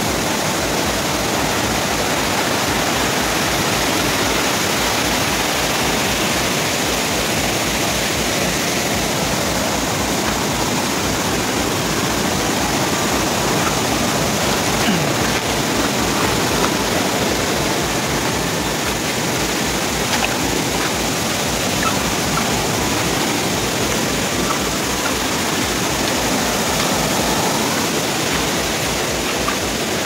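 Waterfall and a fast, muddy stream rushing over boulders: a loud, steady rush of water.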